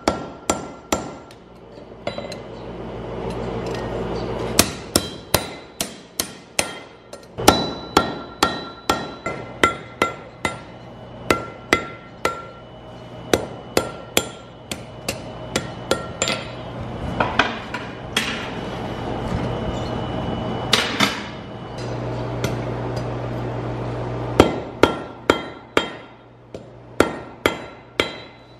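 Hand hammer striking red-hot steel bar stock on an anvil in steady runs of about three blows a second, each blow followed by a brief ring. Twice the blows stop for a couple of seconds and only a steady low hum is heard.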